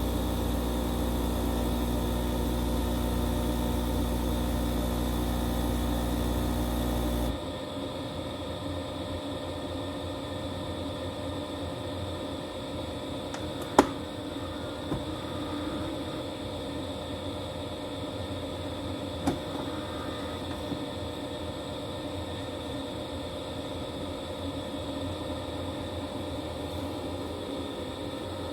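Philips Series 2200 espresso machine running with a steady buzzing hum, which stops abruptly about seven seconds in. A quieter steady background follows, with a sharp click about halfway through and a few fainter clicks.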